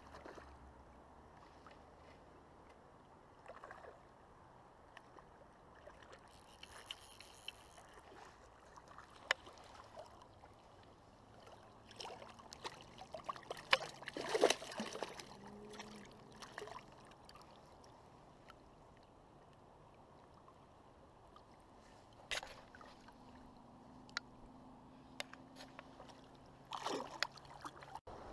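River water gurgling and sloshing close by, with scattered small clicks and knocks. About halfway through come louder splashes as a hand reaches into the water to a hooked small cutthroat trout.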